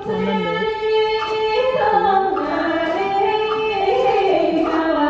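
Traditional Vietnamese water puppet theatre music: a woman singing a melody that moves in steps, over the instrumental accompaniment, with a few light percussion taps.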